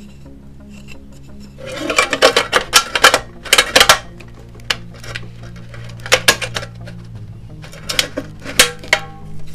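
Thin tin cans clinking and scraping against each other as a small can is worked into a hole cut in the side of a larger can: a dense run of sharp metallic clatter about two seconds in, then a few scattered clinks.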